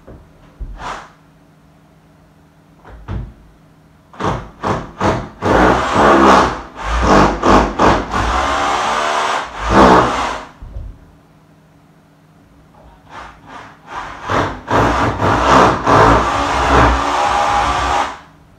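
Handheld power drill boring holes into a soft wall: a few short trigger bursts as the bit bites, then a long run of steady drilling with the motor pitch wavering. This happens twice, with a pause of a couple of seconds between the two holes.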